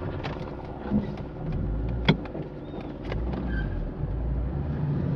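Fiat Palio driving on a dirt road: engine running with steady low road rumble, and a few sharp clicks and knocks over the bumps, the loudest about two seconds in.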